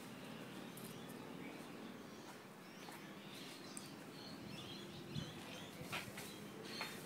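Faint steady background noise with soft high chirps and a few light taps in the last two seconds.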